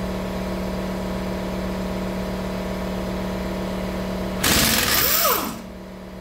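Impact wrench hammering on a front brake caliper bolt, used without an extension: a loud rattle of about a second, about four and a half seconds in, its motor whine arcing up and down in pitch. A steady machine hum runs underneath.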